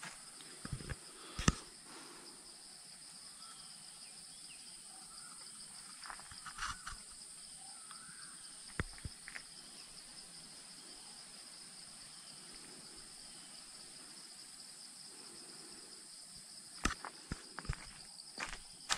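Steady high-pitched drone of insects in dry forest, with a few footsteps crunching on leaf litter and dry soil at the start and again near the end.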